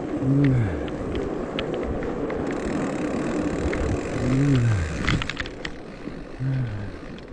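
Fat bike riding over a rutted snow trail: steady noise of tyres and wind, with a cluster of sharp clicks and knocks about five seconds in. Three times the rider makes a short wordless falling "oh"-like sound.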